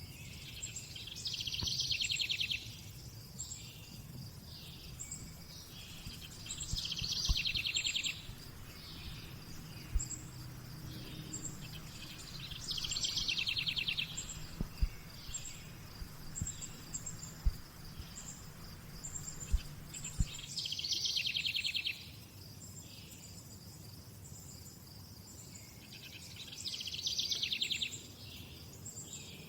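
A songbird repeats a short, rapid trilled phrase about every six seconds, five times in all. Behind it runs a steady high insect chirring with short high chirps, over a low background hum.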